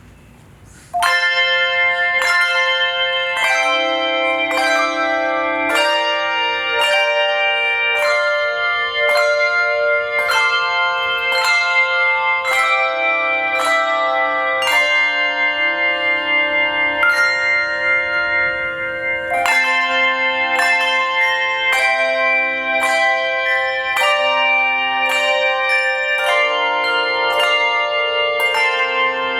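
Handbell choir playing a tune: chords of several ringing handbells struck together on a steady beat, each chord ringing on into the next. The playing starts suddenly about a second in.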